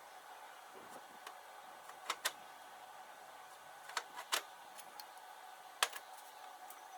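Scattered sharp metal clicks and taps of hand tools working a rusted broken bolt in a turbo housing: a pair about two seconds in, three quick ones about four seconds in and one near six seconds, over a faint steady hum.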